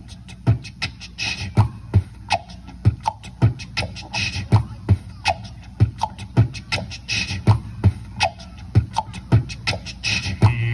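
Beatboxed beat looped on a looping pedal: mouth-made kick drums about twice a second with clicks in between, and a hissing cymbal-like sound that comes back about every three seconds as the loop repeats.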